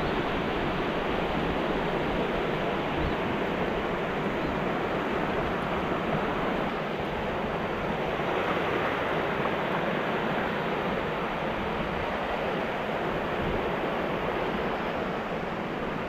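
Small ocean waves breaking and washing up over the shallows, a steady rushing surf noise.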